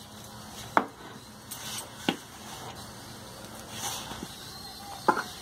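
Hands mixing flour and water into a stiff dough in a stainless-steel bowl: soft rubbing and crumbling, with three sharp knocks against the bowl, about a second in, two seconds in and near the end.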